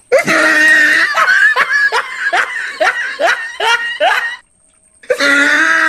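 Loud laughter: a long held note, then a run of short 'ha' pulses falling in pitch, about two or three a second. It breaks off about four and a half seconds in and starts again the same way a moment later.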